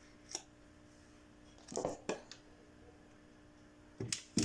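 Pieces of natural firewood being set down and shifted on a covered cardboard box: a handful of short wooden knocks and clatters, the loudest just before the end.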